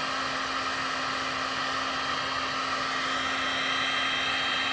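Electric heat gun running steadily on its highest setting, a constant fan whoosh with a steady motor hum, while heating a heat-shrink solder seal connector to melt its solder ring.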